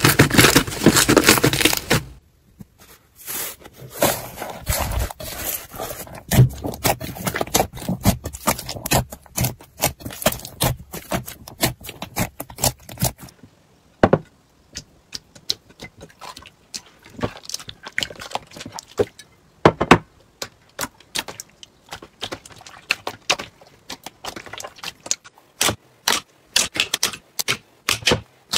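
Hands squishing and poking slime, making a run of small wet clicks, pops and crackles. The clicking is dense and loud for the first two seconds, then thins out to scattered pops.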